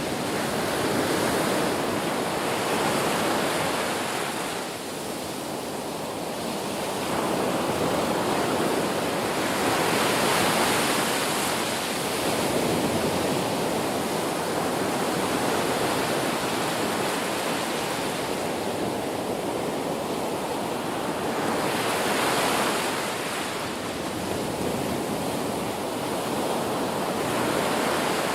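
Ocean surf: waves breaking and washing on a shore in a continuous rushing noise that swells with each breaking wave every several seconds.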